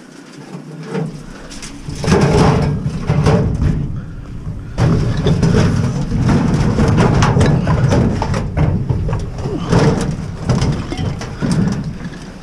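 Loud rumbling and crackling handling noise that starts about two seconds in, as things are moved and the camera's microphone is jostled and rubbed.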